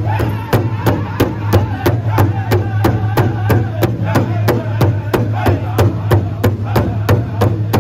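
Powwow drum group singing an intertribal song: several men strike a large hide-covered drum together in a fast, even beat while singing in high, wavering voices.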